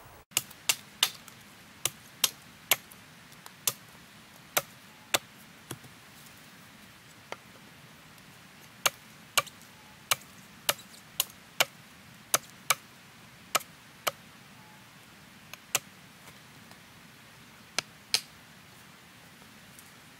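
A machete striking wood in sharp single blows at uneven intervals, some in quick pairs, with pauses of a second or more between, as wooden stakes for a deadfall trap are cut and set.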